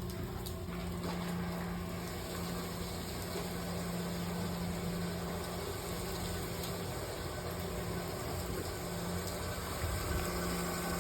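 Steady hum of boiler-room machinery, with an even tone under a constant noisy hiss.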